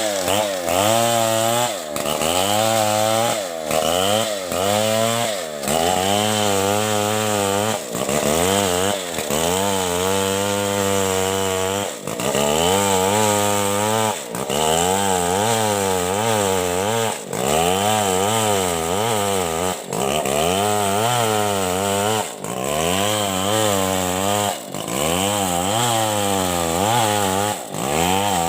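STIHL 070 two-stroke chainsaw running hard while sawing. Its engine pitch wavers up and down, with brief drops in speed about every two seconds.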